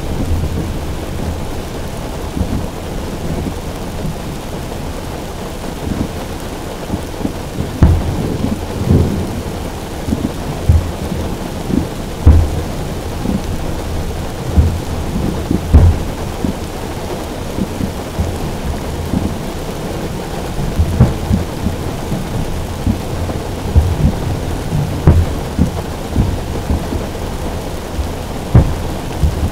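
Heavy rain drumming on a car roof: a steady hiss with frequent, irregular dull thumps, some of them loud.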